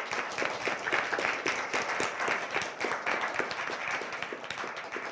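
Audience applauding, a dense run of many hands clapping that begins to fade near the end.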